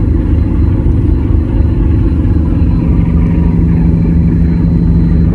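A car ferry's engines running: a steady low hum at one constant pitch over a low rumble.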